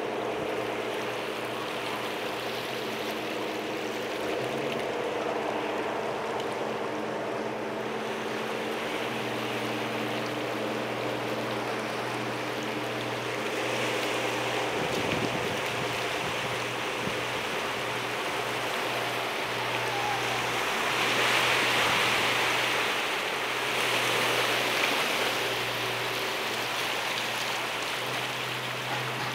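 High-speed passenger catamaran's engines running with a steady low drone of several level tones, over a rush of water churned up at its stern as it manoeuvres to berth. The water rush swells louder twice about two-thirds of the way through.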